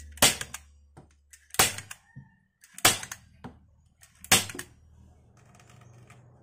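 Hand staple gun firing staples through speaker cloth into a grille frame: four sharp snaps about a second and a half apart, with a couple of lighter clicks between.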